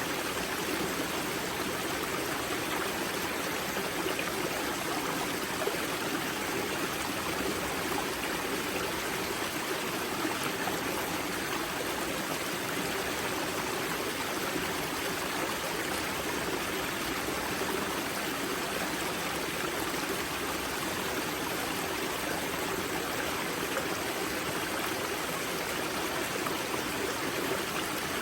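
Spring-fed mountain river flowing and splashing over rocks at its source: a steady, unbroken rush of water.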